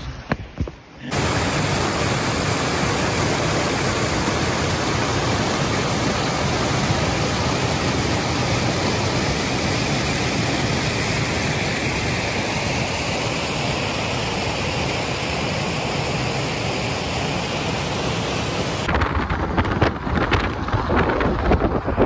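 Waterfall's white water pouring over rock, a loud steady rush that starts about a second in and cuts off suddenly near the end. After that comes irregular gusty wind noise on the microphone.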